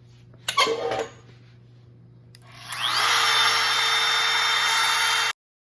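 Wood router with a 1/2-inch bit switched on: a click, then its motor whines up to full speed within about half a second and runs steadily at a high, loud whine, cut off abruptly near the end. About half a second in comes a brief loud clatter of handling.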